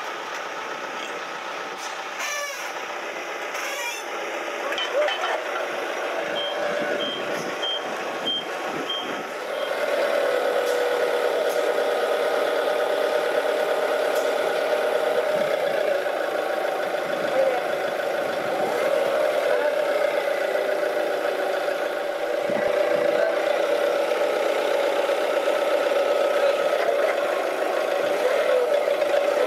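Forklift's reversing beeper sounding about five times in a row. About ten seconds in, its engine rises to a higher, steady running speed as it works the forks.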